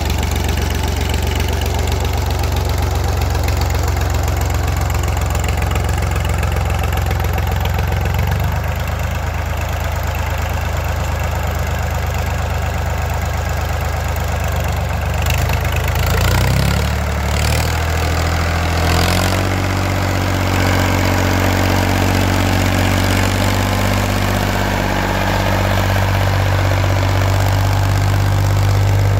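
Ford 2000 tractor engine running steadily while pulling a box blade. Its speed changes between about 16 and 19 seconds in, with a few knocks, then it settles into a steady run again.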